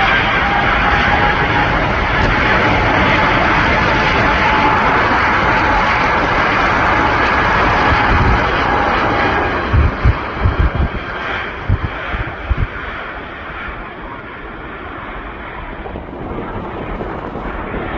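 Airliner engines running loud, with a steady whine over a heavy rush of noise; the whine fades and the noise drops after about ten seconds. Several low thumps of wind on the microphone follow.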